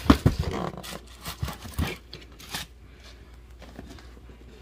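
Cardboard firework boxes being handled: a quick run of knocks, scrapes and rustles over the first two and a half seconds, then quieter.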